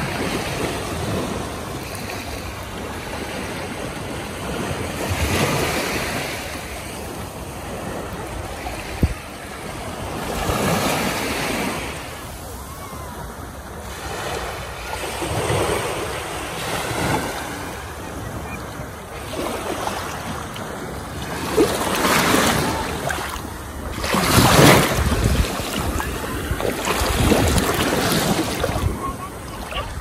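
Small waves breaking and washing up a sandy shore, the sound swelling and fading every five seconds or so, with wind buffeting the microphone.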